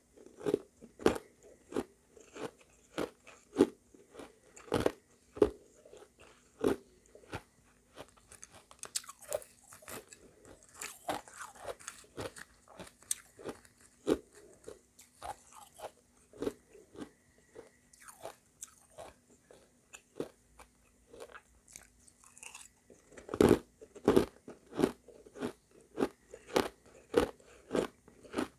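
Close-miked chewing of refrozen shaved ice mixed with crushed ice: hard crunches at roughly two a second, with one heavier bite late on.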